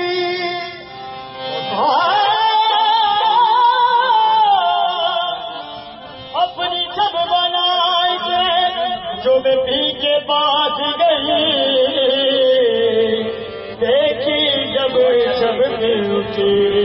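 Live qawwali: a lead voice sings long, wavering melodic lines over instrumental accompaniment, dipping briefly about a second in and again around six seconds.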